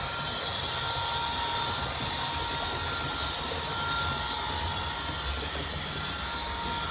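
Diesel-hauled passenger train of Mk2 coaches running past at a steady pace: a low rumble with a hiss, and a faint steady high whine over it.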